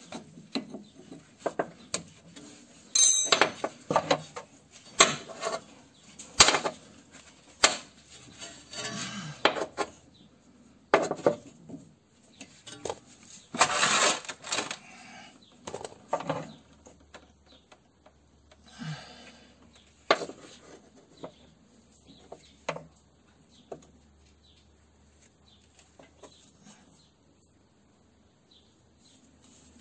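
Irregular metallic clinks, knocks and short scrapes of hand tools on car parts during front brake hose work. Busy at first, then sparser, fading to a few faint taps near the end.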